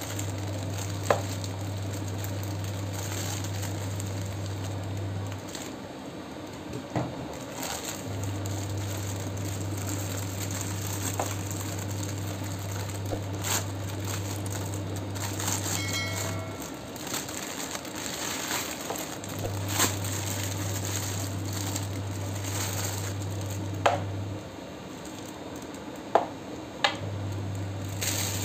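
Clear plastic bag crinkling and rustling as a plush toy cactus is slid out and unwrapped by hand, with a few sharp clicks and taps. A low steady hum stops and starts in long stretches underneath.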